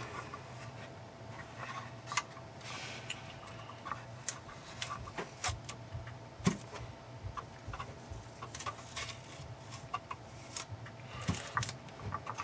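Masking tape being peeled off a painted plastic model car body to uncover freshly sprayed chrome trim, with scattered small clicks, ticks and short rustles as the tape lifts and the plastic shell is handled.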